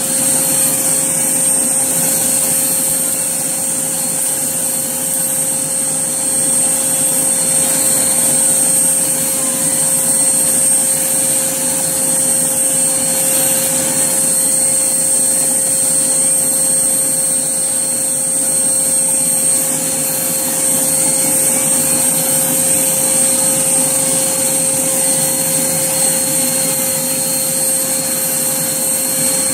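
Hoover Blaze canister vacuum cleaner running steadily with its pet brush attached, a constant motor noise with a thin high whine over it.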